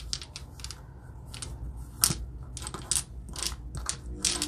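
Domino tiles clicking and clacking against each other and the tabletop as they are slid around and picked out by hand: irregular clicks, the sharpest about two seconds in.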